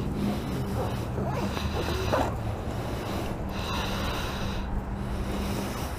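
A person's heavy breathing close to the microphone, slow breaths in and out a second or two apart, over a steady low hum.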